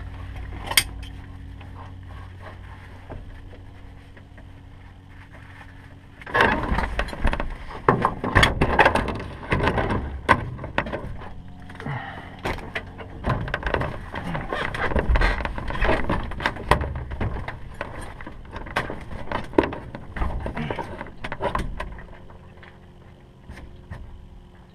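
Pilot unbuckling and climbing out of a light aircraft's cockpit: about fifteen seconds of knocks, clatter and rustling against the airframe and seat. Before it, a low steady hum fades away over the first few seconds.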